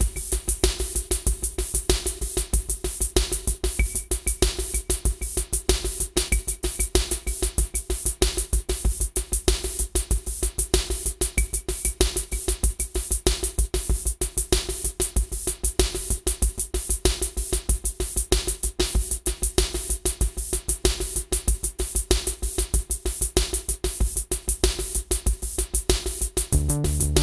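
Generative electronic music from the touchscaper iPad app: a drum-machine beat in a fast, even pulse over a held synth tone, passing through a noise gate on its channel. A synth bass line comes in near the end.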